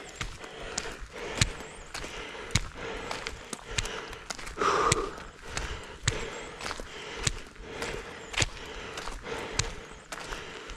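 Footsteps on a gritty, gravel-strewn asphalt path while walking up a steep hill, about two steps a second, with a short louder burst of noise about halfway through.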